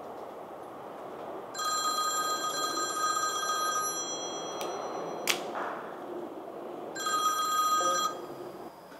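Desk telephone ringing twice: a ring of about two and a half seconds, then after a pause a shorter ring that breaks off as the handset is lifted. There is a single sharp click between the rings.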